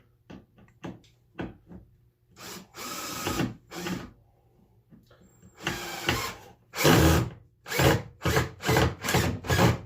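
Power drill driving screws into a wooden board, in several runs of the motor that end in a quick string of short bursts as the screws are seated. A few light clicks come first.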